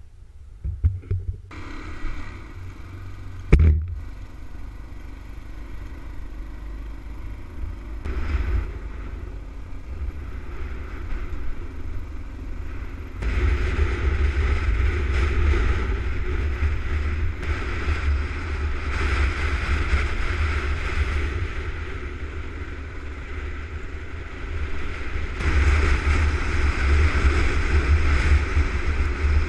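Dual-sport motorcycle riding along a dirt trail and gravel road, its engine running under heavy wind buffeting on the camera's microphone. The wind and engine noise get louder about halfway through and again near the end. A few knocks in the first seconds and a sharp thump a few seconds in come from the camera being handled.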